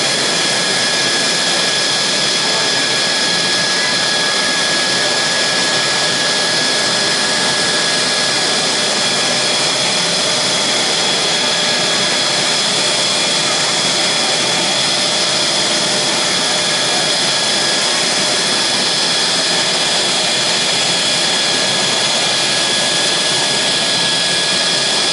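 Mitsubishi F-2's single F110-IHI-129 afterburning turbofan running steadily on the ground during an engine run-up: a constant jet roar with a steady high-pitched turbine whine over it.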